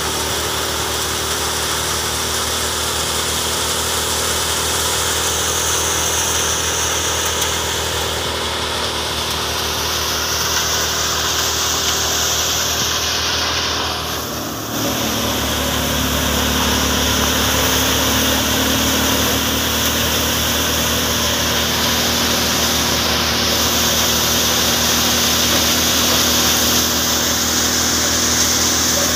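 Tractor-driven wheat thresher running steadily: the tractor engine and the belt-driven threshing drum and blower make a loud, continuous drone. About halfway through the sound dips briefly, then carries on with a slightly different, deeper hum.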